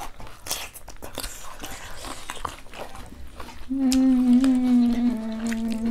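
Close-up crunching and chewing of a bite of raw cucumber, a string of crisp crunches. About two-thirds of the way through, a long steady hummed "mmm" of enjoyment starts and holds, sinking a little in pitch.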